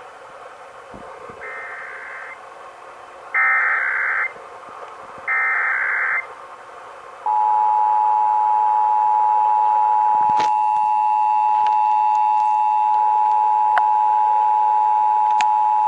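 Emergency Alert System Required Monthly Test tones. First come three roughly one-second bursts of SAME header data, the first one fainter, which encode the alert. Then comes the two-tone attention signal, 853 and 960 Hz sounded together and held steadily for about eight seconds, ending near the end.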